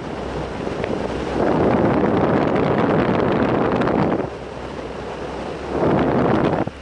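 Wind rushing over the microphone of a camera on a hang glider in flight, swelling into two louder gusts: a long one from about a second and a half in to about four seconds, and a shorter one near the end.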